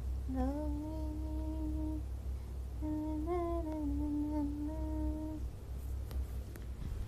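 A woman humming two long held notes, the second wavering a little in pitch, with a steady low hum underneath.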